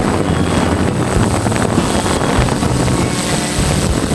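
DJI F550 hexacopter's six motors and propellers running steadily in flight, heard through its onboard GoPro, with wind buffeting the microphone.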